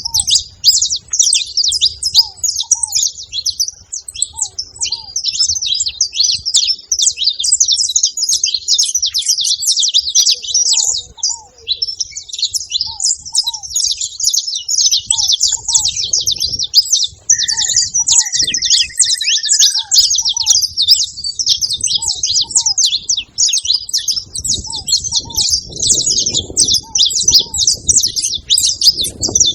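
Saffron finches chirping: a continuous, dense stream of rapid high chirps. Fainter short, lower notes repeat about once a second, and a brief whistled tone sounds around the middle.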